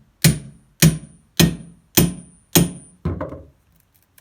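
Hammer blows on wood, evenly spaced at a little under two a second: five strong strikes, then a few lighter, quicker knocks about three seconds in. The hammering is breaking apart lumber bonded with urethane adhesive.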